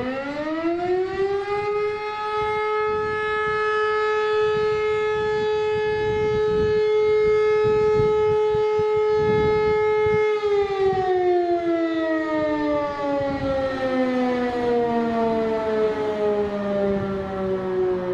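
E57 electromechanical siren sounding the fire-brigade alarm. It winds up to full pitch in about two seconds, holds a steady tone for about ten seconds, then winds down with a slowly falling pitch.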